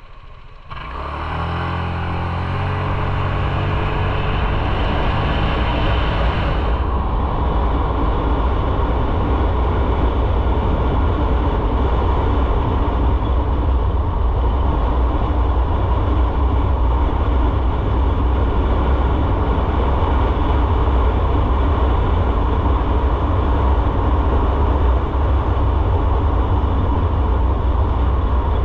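Motorcycle pulling away from idle about a second in, the engine note climbing, then running on at a steady speed under a constant rush of wind noise.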